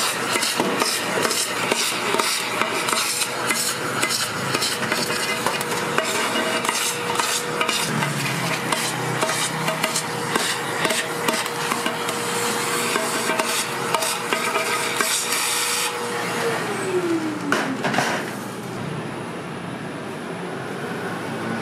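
Rapid clicking, tapping and scraping of metal tools on a red bean cake griddle, with a steady hum underneath. Near the end the hum slides down in pitch and stops, the clatter ends, and what follows is quieter with a faint high whine.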